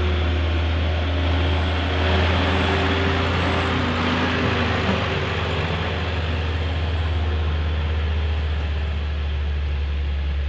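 Steady road traffic noise with a continuous low engine rumble, no horn sounding.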